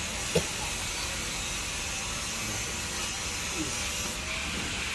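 Steady background hiss, with one short knock or clack about half a second in.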